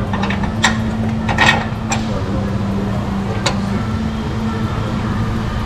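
A few sharp metal clanks and clicks from tools and parts during front-suspension work, over a steady low hum.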